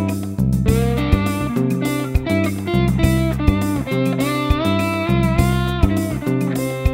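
Slide guitar instrumental: a guitar melody whose notes glide up and down between pitches, over a steady bass and rhythm backing.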